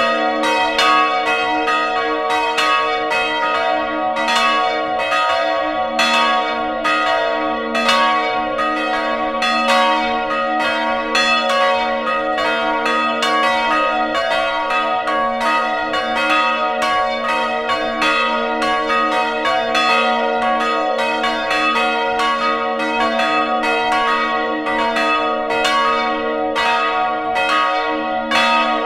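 Three church bells swinging together in a wooden bell frame, heard up close inside the belfry, ringing a continuous full peal of overlapping strokes.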